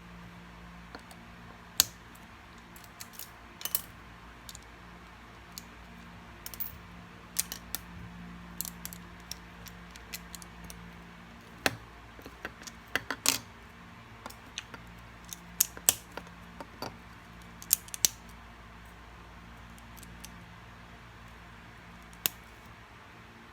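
LEGO pieces clicking and clattering as flat plates are handled and pressed onto the parts: irregular sharp plastic clicks, thickest in the middle of the stretch.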